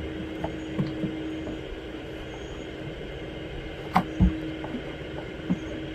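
Scattered light clicks and knocks as the truck's plastic grille shell is handled and worked loose, with a sharper click and a low thump about four seconds in, over a steady low hum.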